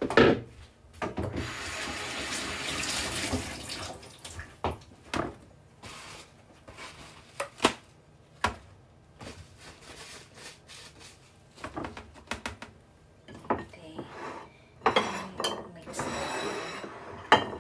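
Dishes and utensils clinking and knocking in a kitchen, with two stretches of steady rushing, hissing noise of about three seconds each: one about a second in, the other near the end.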